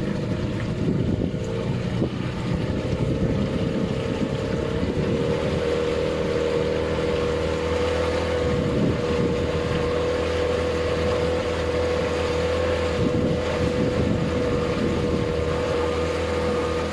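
Motorboat engine running. It climbs a little in pitch a few seconds in and then holds a steady drone, with wind on the microphone.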